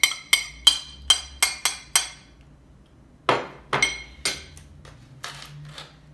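A metal spoon tapping against a ceramic plate to knock minced garlic off into a bowl: about seven sharp, ringing clinks in quick succession over two seconds. After a short pause come a few duller knocks and clatters of kitchenware being set down.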